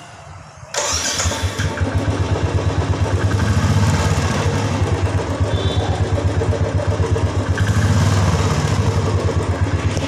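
Royal Enfield single-cylinder motorcycle engine starting: it catches suddenly about a second in, then idles with an even, pulsing thump and swells slightly in revs twice.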